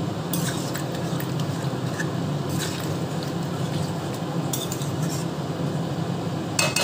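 Metal spoon scraping and clinking against an aluminium kadai as a thick, saucy potato curry is stirred, in a few short scrapes and clicks over a steady low hum.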